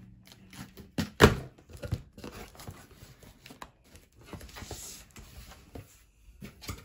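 A cardboard box being opened by hand: tape and cardboard tearing and packing paper rustling, with a sharp knock about a second in.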